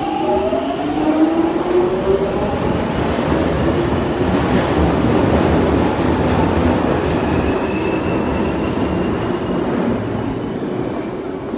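Jubilee line tube train (1996 Stock) pulling out of the platform: its traction motors whine, rising in pitch over the first couple of seconds, then the train's running noise swells and slowly fades as it goes into the tunnel.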